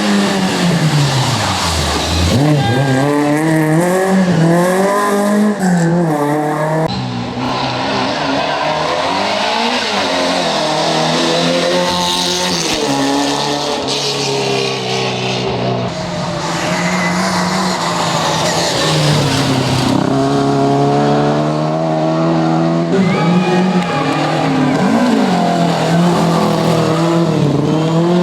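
Classic rally car engines driven hard on a stage, pitch climbing under throttle and dropping at each gear change or lift, over and over. The sound changes abruptly a few times, as if cutting between different cars.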